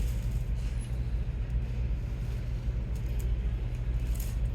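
Steady low machine hum, with a few faint ticks.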